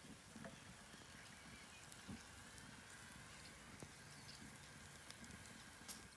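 Faint sizzling with scattered small crackles from a charcoal fire in an OzPig stove, with a rolled pork belly roasting on a rotisserie spit above it.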